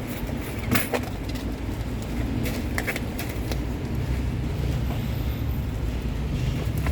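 Steady low rumble, with a few short sharp clicks about a second in and around three seconds in.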